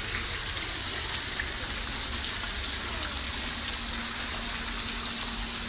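Thermal water falling from a stone overhang into a pool: a steady splashing rush.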